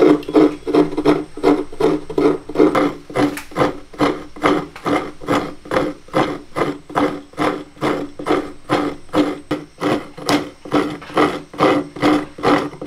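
Half a coconut being scraped by hand against the serrated metal blade of a stool-mounted coconut scraper, a steady rasping rhythm of about two strokes a second.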